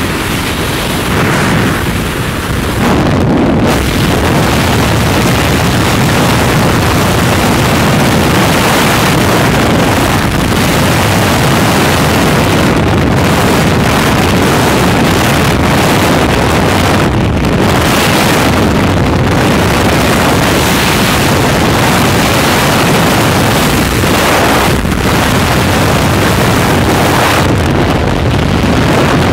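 Freefall wind rushing over a skydiving camera's microphone: a loud, steady roar of air that swells and dips slightly as the flyer moves.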